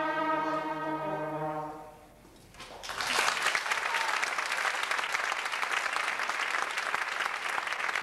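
A children's concert band of brass and woodwinds holds a final chord that stops about two seconds in. After a short pause an audience applauds, the clapping steady until it cuts off abruptly at the end.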